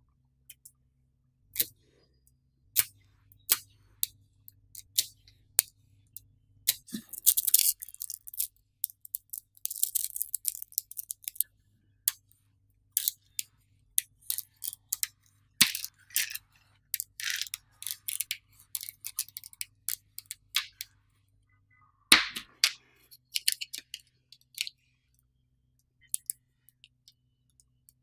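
Small metal magnet balls clicking as they snap together and are pulled apart by hand while being built into rows. Mostly single sharp clicks, with runs of quick rattling clicks about a third of the way in and again about three quarters through.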